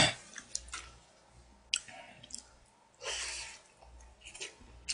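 A person eating with chopsticks: soft chewing and mouth sounds with a few light clicks of the chopsticks against a plastic takeout tray, and a short breathy hiss about three seconds in.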